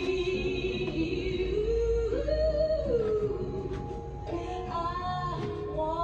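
A song with a sung vocal melody over guitar-like accompaniment, playing in the background.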